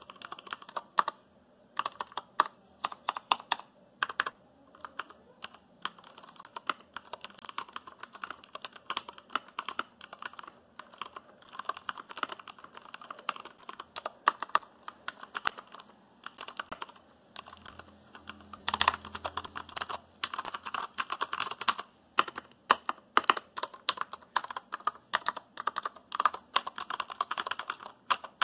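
Typing on a Durgod Taurus K320 tenkeyless mechanical keyboard with Cherry MX Brown switches and PBT keycaps. The keystrokes come in quick, uneven runs with short pauses, and there is a denser, louder flurry about nineteen seconds in.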